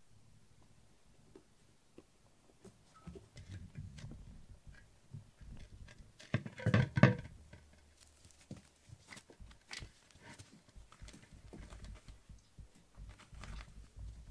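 Kittens' paws pattering and scrabbling on foam floor mats, with scattered light taps. About six and a half seconds in comes a louder, brief clatter of knocks.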